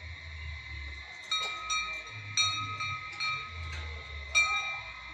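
Metal bells being struck at irregular intervals, several times, each strike ringing on with a clear bright tone. The loudest strike comes near the end, over a steady low rumble.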